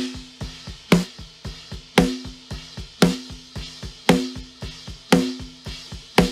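Recorded drum kit playing back in a steady groove: a loud snare hit about once a second, with kick drum and cymbal hits between and a held low note underneath. The snare is being run through a channel strip's EQ and slow-attack 2:1 compressor.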